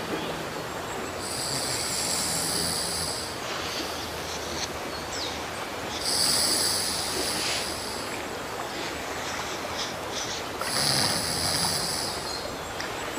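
Men snoring while dozing in their chairs, three slow snores about four to five seconds apart, over a steady outdoor hiss.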